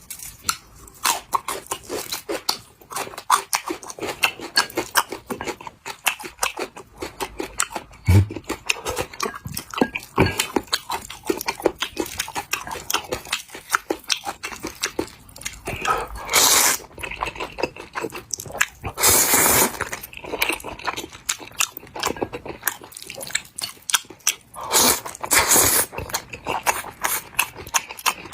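Close-miked eating of a bowl of noodles: steady wet chewing and smacking, with a few longer slurps of about a second each, in the second half.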